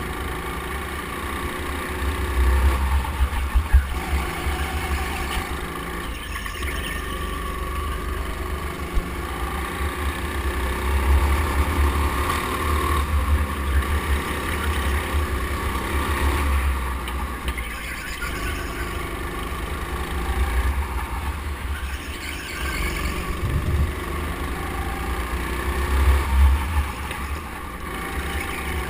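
Go-kart engine running under the driver, its pitch repeatedly rising and falling as the kart speeds up on straights and backs off for corners, over a constant deep rumble. Heard from a camera mounted on the kart.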